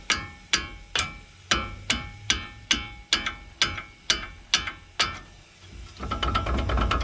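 Hammer blows on metal: about a dozen evenly spaced ringing strikes, about two a second. They are followed near the end by a short run of rapid metallic rattling.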